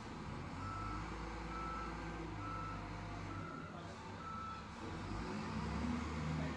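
SDLG wheel loader's diesel engine running, with its reversing alarm beeping five times, about once a second, and stopping about five seconds in. The engine grows louder near the end.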